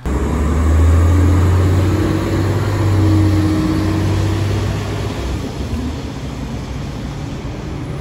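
Los Angeles Metro Local city bus pulling away and driving off. Its engine is a deep drone, loudest in the first few seconds, and it eases off after about five seconds into steady street traffic noise.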